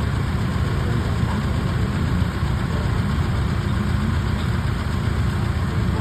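Off-road 4x4 vehicle's engine idling steadily, a low, even rumble.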